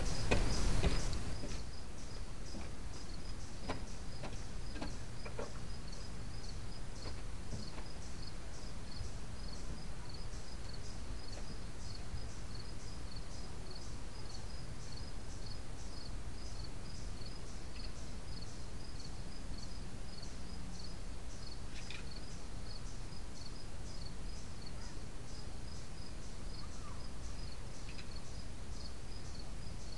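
Insects chirping steadily outdoors, short high chirps repeating at about two a second, over the steady hiss of a small camera microphone. A brief louder rush of noise comes in the first second or so.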